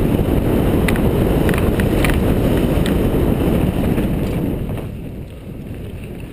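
Wind buffeting a helmet-mounted camera's microphone over the rumble of mountain-bike tyres on a dirt trail, with a few sharp rattling clicks from the bike. The rush dies down about four and a half seconds in as the bike slows onto flat ground.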